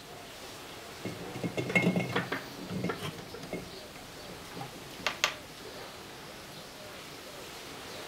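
Refrigerator compressor's steel shell being handled and tipped to drain its oil: a couple of seconds of metallic rattling and clinking with a brief ring, then two sharp clicks about five seconds in.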